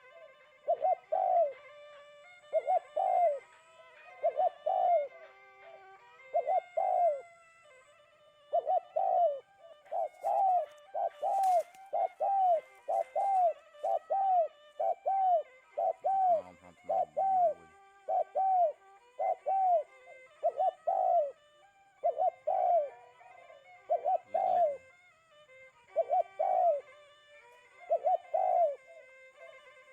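A bird calling the same short, rising-and-falling hooting note over and over, about once a second, with a brief pause about a third of the way through.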